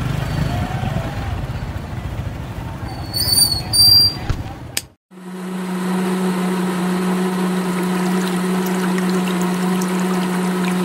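For the first five seconds there is a rough rumbling noise, with two short high tones and a click just before it stops. About five seconds in, the small electric motor of a miniature homemade juice machine starts up and runs with a steady hum while it presses a watermelon.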